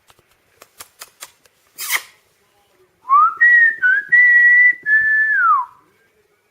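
A person whistling a short phrase of several notes held at a high pitch, ending in a downward slide. A few soft clicks and a brief breathy puff come first.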